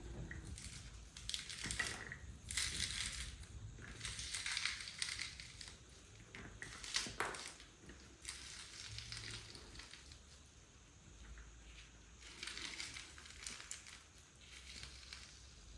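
Irregular crunching, in uneven bursts of about a second each.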